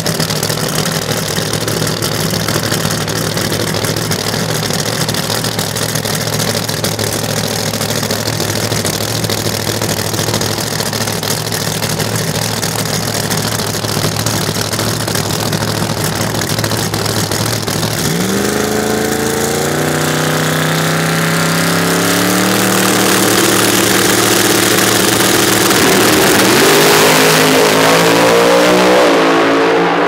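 Drag-racing engines of a twin-88mm-turbo Corvette and its opponent, idling steadily, then from about 18 seconds in revving, the pitch climbing in steps and the sound getting louder toward the end as the cars leave the line.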